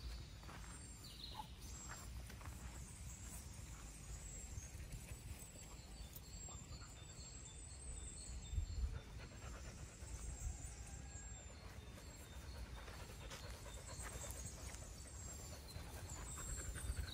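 Czechoslovakian wolfdog panting, with faint, short high chirps above it.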